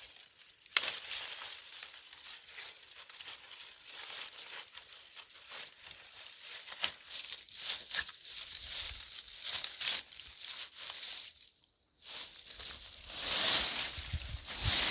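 Dense crackling and rustling with scattered sharp clicks. Just before the end it cuts out briefly, then gives way to loud wind gusting on the microphone, with a low rumble.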